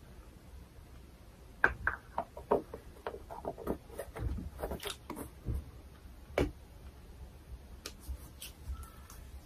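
Plastic jar of Gatsby Moving Rubber hair wax being handled and wax taken out with the fingers: an irregular run of small clicks and taps starting about a second and a half in, thinning out after about six and a half seconds.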